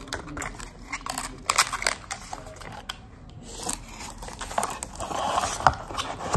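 A perfume bottle being slid back into its thin cardboard box and the flaps folded shut: card crinkling and scraping with light taps and clicks, and a longer rustle in the second half.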